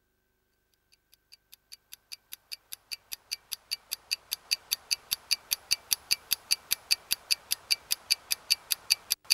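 Mechanical watch ticking fast and evenly, about five ticks a second. It fades in and grows louder over a rising hiss, then cuts off suddenly with one sharp click near the end.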